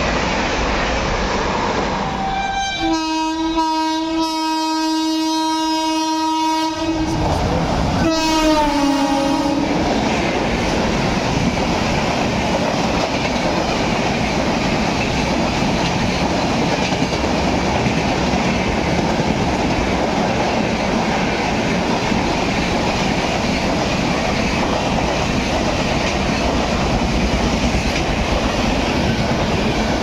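Secunderabad Rajdhani Express's locomotive horn sounds a long steady blast a few seconds in, then a shorter second blast that drops in pitch as it passes. Its coaches then rush by at full speed, with a steady loud rumble and clickety-clack of wheels on the rails.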